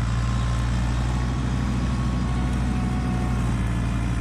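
Kubota LX2610 compact tractor's three-cylinder diesel engine running steadily under load as it passes, driving its front snowblower while its rear blade pushes snow.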